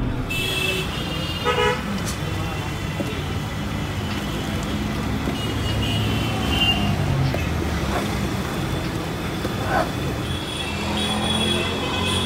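Busy street traffic with vehicle horns honking several times over a steady rumble of engines and tyres, and some background voices.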